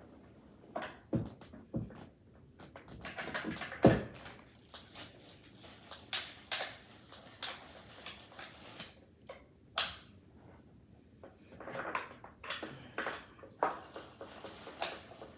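Irregular knocks, clicks and rustling from table parts being handled during assembly, the sharpest knock about four seconds in.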